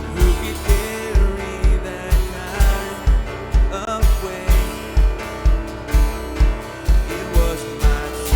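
Live worship band music: a steady kick drum thumping about two and a half times a second under guitar and sustained keyboard chords.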